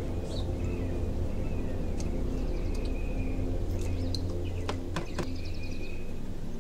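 A steady low droning hum with short, repeated bird chirps above it, and a couple of brief clicks a little after the middle.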